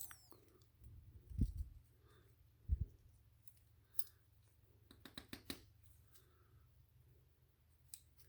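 Small clicks of a Glock-pattern trigger housing and a new trigger connector being handled and fitted together, with two dull low knocks about one and a half and three seconds in, and a quick run of clicks about five seconds in.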